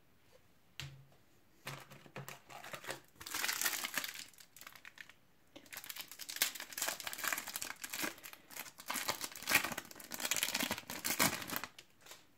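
Foil wrapper of a Match Attax trading-card booster pack crinkling as it is torn open and the cards are pulled out, in two spells of dense crackling with a short pause between.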